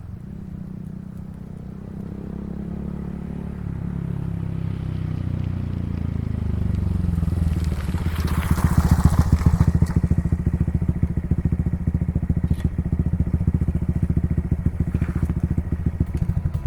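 Honda Monkey 125's single-cylinder engine heard through its exhaust, growing louder over several seconds as the engine pitch falls, then running steadily close by with an even, rapid exhaust pulse from about eight seconds in.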